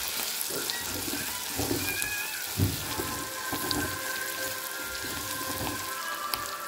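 A tadka of chillies, curry leaves and dal sizzling and crackling in hot oil, with small spatters popping. A plastic spatula stirring it knocks and scrapes against the pan, the loudest knock a little past halfway.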